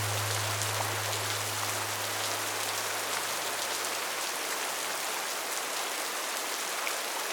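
Steady rain falling, an even hiss with drops. A low held note of background music fades away over the first few seconds.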